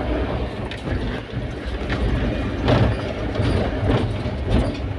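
Cab interior of a Mahindra Bolero pickup truck on the move: a steady low engine and road rumble with irregular knocks and rattles about once a second.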